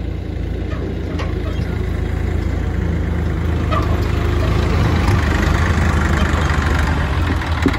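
Tractor diesel engine running steadily at idle, a continuous low hum that grows slightly louder after the middle.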